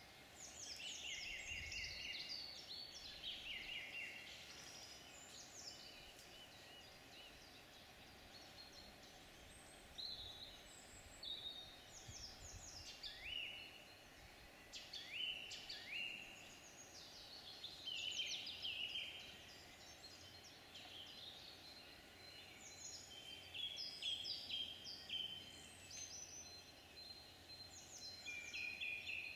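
Songbirds singing: short phrases of quick, falling whistled notes, repeated every few seconds and sometimes overlapping, over a faint steady background.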